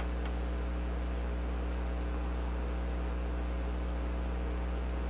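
Steady low electrical mains hum with a faint hiss underneath.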